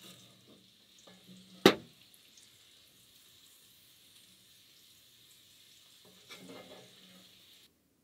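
A single sharp metal clank about one and a half seconds in from handling at a small wood stove, then a few faint knocks and rattles near the end, before the sound cuts off abruptly.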